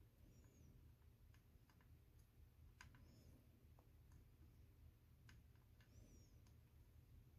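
Near silence: a faint low hum with scattered faint clicks and ticks, and a faint high double chirp about every three seconds.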